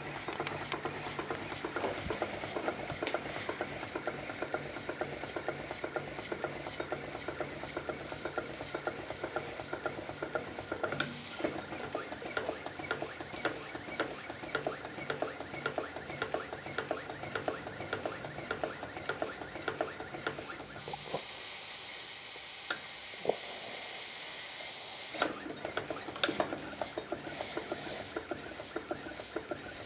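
Taylor Twin twin-cylinder steam boat engine running with a rapid, regular knocking from its unadjusted bearings. About two-thirds of the way through the knocking stops for a few seconds and a steady hiss takes over, then the engine runs and knocks again.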